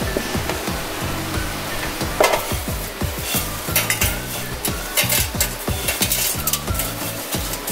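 Dry, sugar-crusted candied pomelo peel strips scraping and crackling as chopsticks push them from a bowl into a metal air-fryer basket, with a few sharper clicks of chopsticks against bowl and basket.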